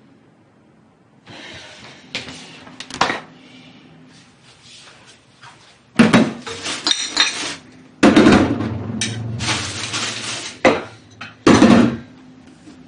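Dishes, pots and cutlery clattering and clanking at a kitchen sink, handled with sharp knocks at first and then a run of loud bangs and clatter through the second half.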